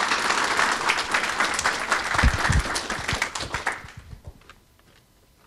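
Audience applauding, the clapping dying away about four seconds in. Two low thumps come near the middle.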